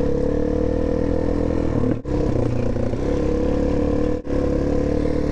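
Suzuki DR-Z400S single-cylinder four-stroke engine running at a steady pitch while the bike is ridden. The sound cuts out briefly twice, about two and four seconds in.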